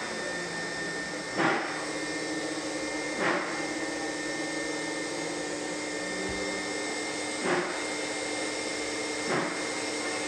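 Vacuum cleaner running steadily with a whining hum, as a nozzle on a hose and wand is pushed over carpet. The hum is broken four times by a short, louder whoosh.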